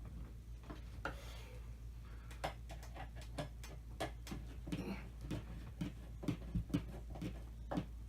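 Irregular light clicks and taps of metal fan hardware as screws are fitted into a ceiling fan's mounting, some in quick clusters, over a low steady hum.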